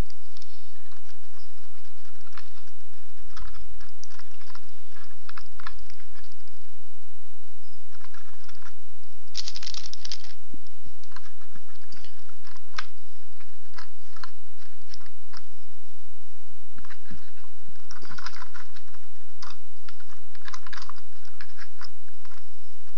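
Irregular scratchy rustles and small clicks of a small paintbrush dabbed and scrubbed against the plastic trucks and underside of a model locomotive, with a longer scratchy burst about ten seconds in and more near the end.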